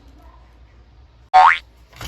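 A cartoon "boing" sound effect: one short rising whoop about a second and a half in, after a quiet stretch.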